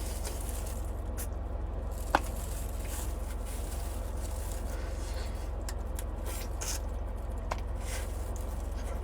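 Faint scraping and squishing of crawfish shells being peeled and eaten by hand, with small scattered clicks and one sharp click about two seconds in, over a steady low hum.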